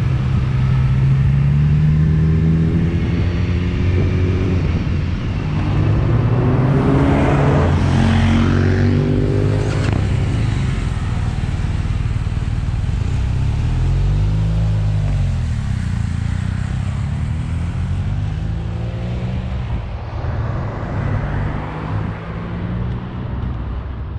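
Motorcycle engine, the BMW S1000RR's inline-four, heard from on board while riding, its revs climbing and dropping several times as it accelerates and shifts, with a short rise and fall in pitch about halfway through. A steady rush of wind and road noise lies under it, and the engine eases off near the end.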